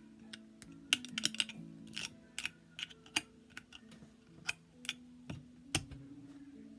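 Long fingernails tapping and clicking on an aluminium drink can in an irregular run of sharp clicks, over soft background instrumental music.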